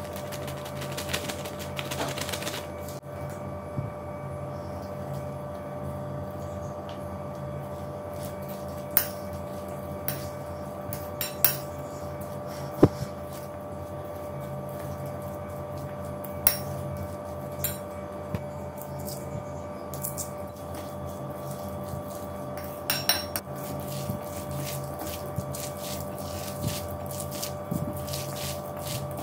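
Steel spoon mixing a stiff mashed-potato and flour mixture in a bowl: scraping with irregular clinks and taps of the spoon against the bowl, over a steady hum.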